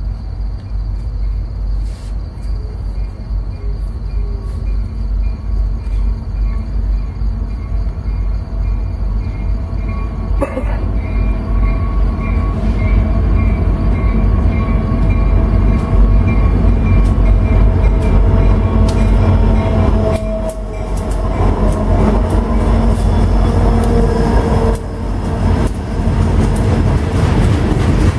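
Diesel-hauled freight train approaching and passing close by. A low rumble grows louder as the locomotives draw near and go by, and the freight cars then roll past.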